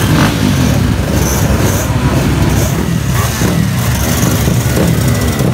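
Small motorcycle and scooter engines running close by, a steady low drone, with people talking over it.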